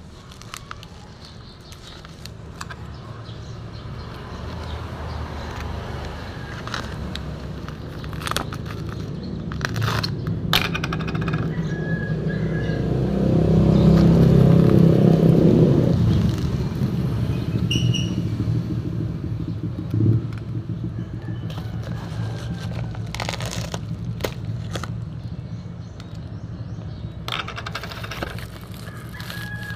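A motor vehicle passing: its engine grows louder to a peak about halfway through, then fades, with scattered clicks and scrapes of handling close by.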